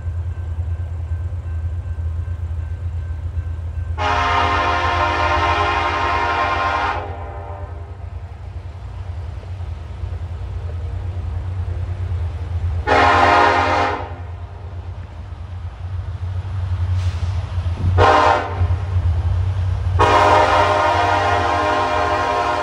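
A BNSF diesel locomotive sounds its multi-chime air horn over the steady rumble of the approaching train's engines. The horn comes in four blasts: long, shorter, short, and a final long one, the pattern of the grade-crossing warning.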